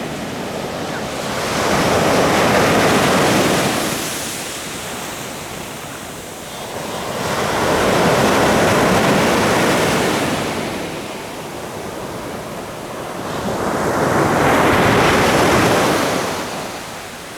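Ocean surf breaking on a beach: three waves, about six seconds apart, each swelling up and washing back down.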